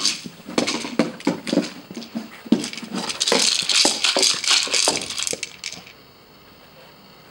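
Hollow plastic toy ball rattling and clattering in quick, irregular clicks as a corgi puppy noses and pushes it along the floor and door track; the rattling dies away about six seconds in.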